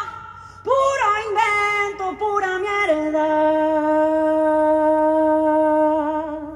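A voice singing: a few short notes with slides in pitch, then one long held note from about three seconds in that stops abruptly at the end.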